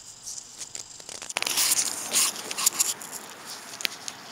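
Dry leaf litter and twigs crackling and rustling, starting about a second in and loudest through the middle, with a sharp click near the end.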